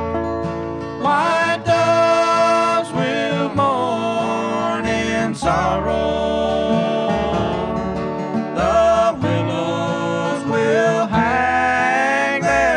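Bluegrass string band music with guitar and other plucked strings, and held, gliding melody lines over the picking.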